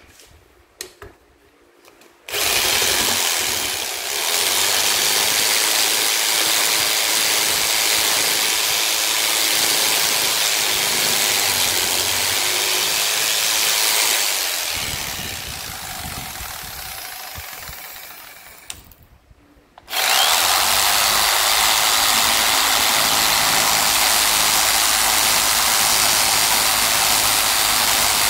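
Electric jigsaw running with a sanding attachment in place of the blade, the reciprocating sanding stick rubbing against the edge of a wooden block. The motor starts about two seconds in, dies away and stops a little before twenty seconds in, then starts again and runs steadily.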